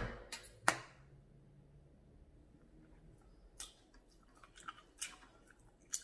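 A person chewing food close to the microphone in a mukbang, with two sharp clicks in the first second, the first the loudest, and a few softer clicks in the last couple of seconds.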